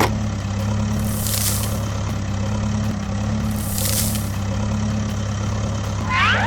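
Steady engine drone of a small tractor-type vehicle running at a constant speed, with a faint hiss that swells about every two and a half seconds. A short rising sound comes in near the end.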